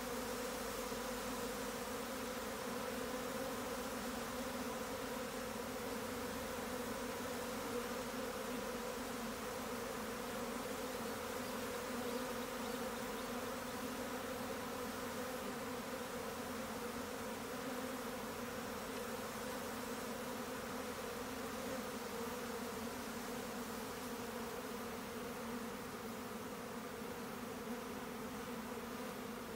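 A swarm of Japanese honeybees in flight, a dense, steady buzzing hum of many wings as the colony issues from its hive to swarm.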